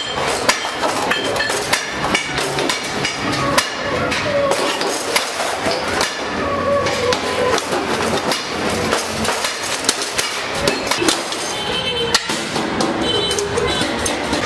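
Long-handled hand shears cutting stainless steel sheet, amid frequent sharp metallic knocks and clinks at an irregular pace.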